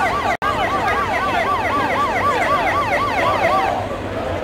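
A siren in a fast yelp, its pitch sweeping up and down about four times a second, stopping about three and a half seconds in. A brief dropout cuts the audio just under half a second in.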